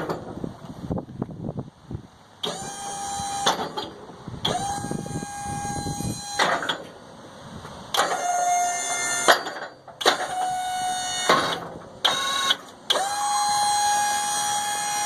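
Electric hydraulic pump of a Snow X electronic-over-hydraulic V plow running in about six short bursts of one to two seconds each as the wings are moved by push-button, a steady whine that drops in pitch each time it shuts off. The last run, near the end, is the longest.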